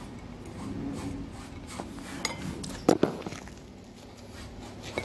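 Pizza and plate being handled: scattered light clicks and knocks, with a sharper pair of knocks about three seconds in.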